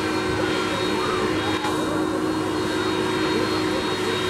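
Airbus A300-600ST Beluga's two General Electric CF6-80C2 turbofan engines running as the aircraft taxis: a steady jet whine over a low hum.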